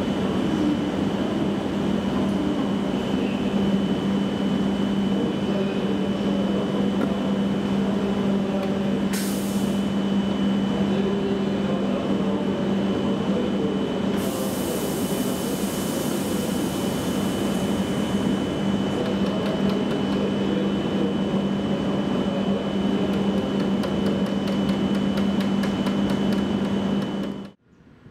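E7 series Shinkansen trainset standing at the platform and running, a steady hum with a low tone and a high thin whine. A short hiss comes about nine seconds in and a longer one from about fourteen to eighteen seconds in. The sound cuts off suddenly near the end.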